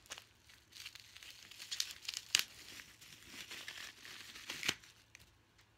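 Plastic wrapping crinkling and tearing as a shift knob is unwrapped by hand, in irregular rustles with a couple of sharper crackles about two and a half and nearly five seconds in. It goes quiet in the last second.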